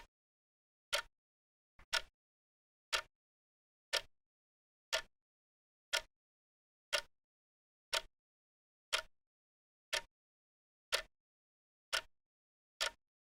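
Clock-tick sound effect of a countdown timer: a short, sharp tick once a second, with dead silence between ticks.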